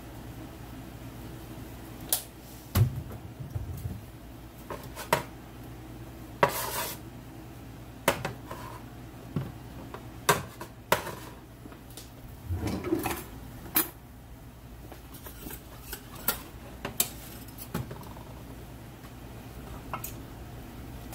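Cookware being handled: a utensil clinking, knocking and scraping against a stainless saucepan in a dozen or so irregular strikes, with a low steady hum underneath.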